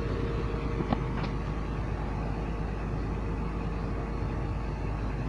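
Komatsu PC200-8 excavator's six-cylinder diesel engine running steadily, freshly started after an oil and fuel filter change and running fine.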